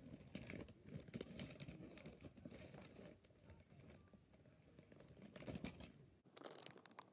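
Faint, irregular crinkling and rustling of plastic packaging being handled.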